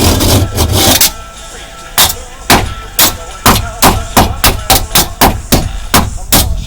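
Repeated hammer blows striking a Master Lock padlock, about a dozen sharp metal impacts at roughly three a second, starting about two seconds in, as it is beaten to break it open.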